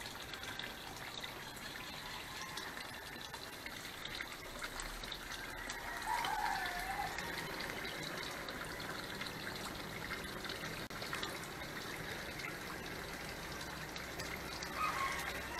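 Water running steadily and splashing into a small concrete koi tank from its inflow pipe. A brief wavering tone sounds about six seconds in.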